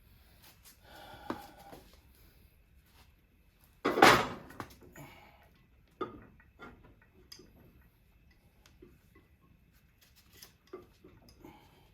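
Clunks and knocks of a motorcycle rear wheel being worked up into the swingarm, with one loud clunk about four seconds in, a smaller knock about two seconds later, and scattered light clicks of metal parts being handled.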